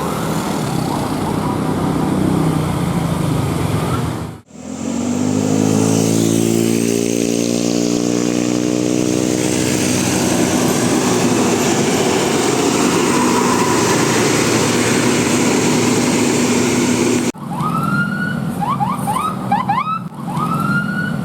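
Road traffic noise, then a bus engine rising in pitch as it speeds up and holding steady. Near the end a multi-tone 'telolet' bus horn plays quick repeated rising and falling notes.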